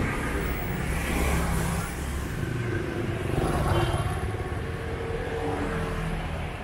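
Street traffic: a car passes close, then a motor scooter passes close about four seconds in, over a steady rumble of engines and tyres.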